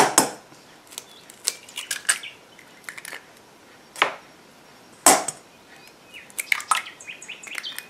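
Two eggs being cracked against a bowl: sharp taps of eggshell on the rim, the loudest at the start, about four seconds in and just after five seconds, with smaller clicks of shell and bowl in between.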